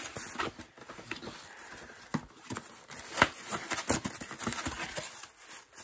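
Irregular taps, knocks and rustling from items and packing material being handled and unwrapped inside a cardboard shipping box.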